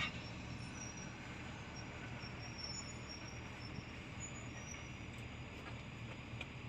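Heavy machinery running steadily at a sand mine: a low, even diesel engine drone, with faint high chirps above it.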